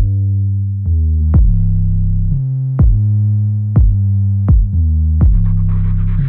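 Electronic background music: a heavy synth bass line with a kick drum hitting about once a second.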